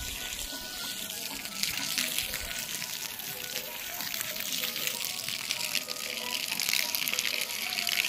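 Water jetting from a plastic hose and splashing onto dry, stony earth: a steady hissing spray that grows a little louder in the second half.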